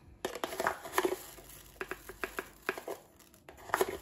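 A spoon scooping nigella seeds out of a plastic jar, the seeds rattling against the jar. A string of small, irregular clicks and rustles.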